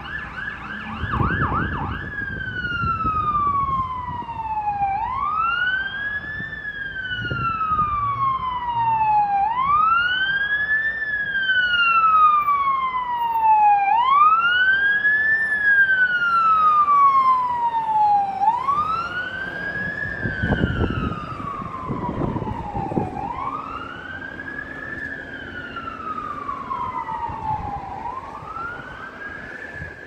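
Fire truck siren: a rapid yelp for about two seconds, then a wail that sinks slowly and rises quickly about every four and a half seconds. It grows louder toward the middle and fades near the end.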